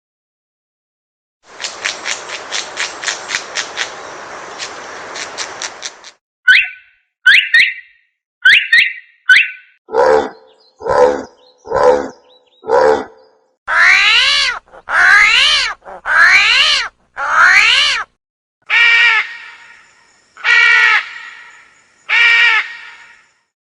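Recorded animal sounds played one after another: a fast rattling buzz for a few seconds, then several short chirps, then a run of about a dozen drawn-out calls, each rising and falling in pitch.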